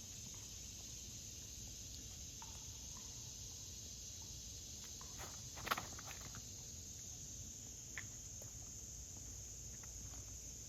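Steady high-pitched chorus of insects, crickets or cicadas, over faint outdoor background noise. A little past halfway comes a brief cluster of scuffs ending in one sharp snap, with a single faint tick a couple of seconds later.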